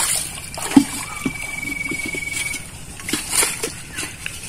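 Shallow muddy pond water splashing and sloshing as a bamboo-framed hand net and a scooping bowl are worked through it, in short uneven splashes, the sharpest about a second in.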